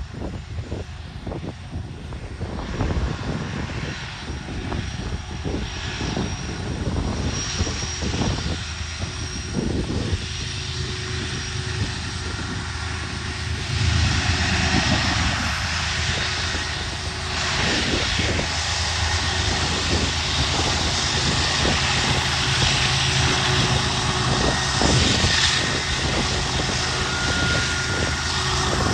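Freight train diesel locomotives running with a steady low drone, mixed with a rushing noise that grows louder about halfway through.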